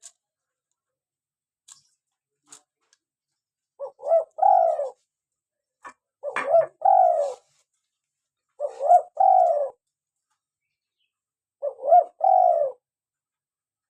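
Spotted dove (tekukur) cooing: four phrases, each two short notes followed by a longer drawn-out coo, repeated about every three seconds from about four seconds in. A few faint clicks come before the first phrase.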